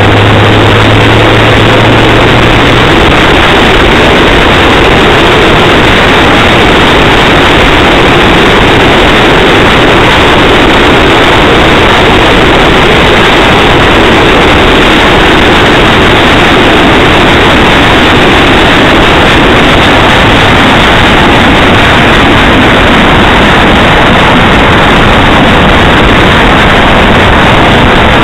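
Loud, unchanging road and engine noise of a car on the move, as picked up by a dashcam microphone inside the car, with a steady low hum for the first few seconds.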